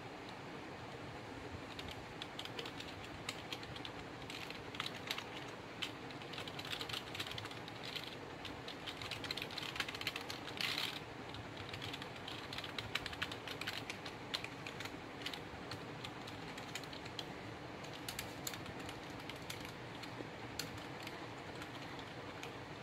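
Keys of an HP mechanical keyboard clicking as they are pressed in quick, irregular runs, starting about two seconds in and densest around the middle, over a steady background hiss.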